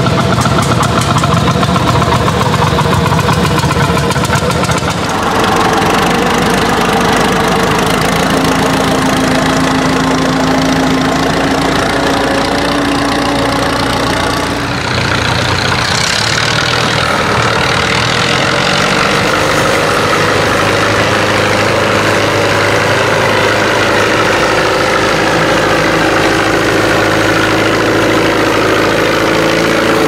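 Old tractor engines running in a few successive shots, changing sharply about five seconds in and again about halfway through. The last and longest part is an orange Fiat 850 Super's diesel engine running steadily under load while it pulls a plough through the ground.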